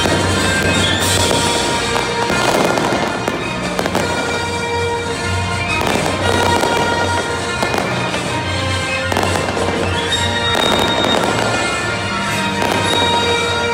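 A fireworks display going off in a continuous run of bangs and crackles, with music playing over it.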